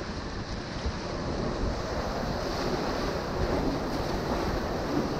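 Whitewater of a river rapid rushing around an inflatable raft, a steady noisy rush with wind buffeting the microphone.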